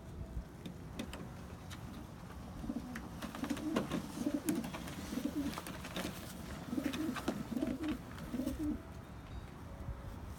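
Pigeon cooing: a run of low, wavering coo phrases from about three seconds in to near nine seconds, with scattered light clicks over them.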